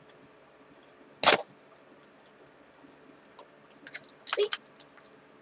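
A pack of My Little Pony trading cards being opened by hand: one sharp crackle of packaging about a second in, then lighter clicks and crinkles near the end.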